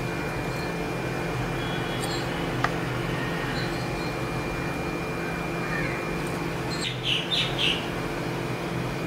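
A bird chirps a quick run of three high notes near the end, with a few fainter chirps earlier, over a steady low hum and a thin high whine. There is a single sharp click a few seconds in.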